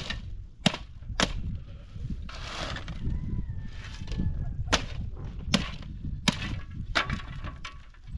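Metal shovel digging into dry, stony earth: about seven sharp clacks as the blade strikes stones, with hissing stretches of dirt and gravel scraped up and tipped into a sieve.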